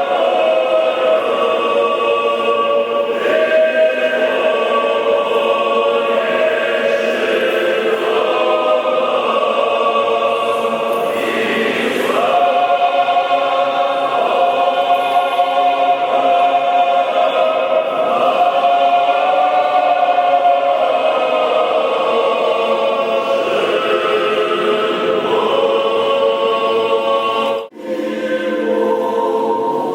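Orthodox church choir singing liturgical chant in held, many-voiced chords. The sound cuts out sharply for a moment about two seconds before the end.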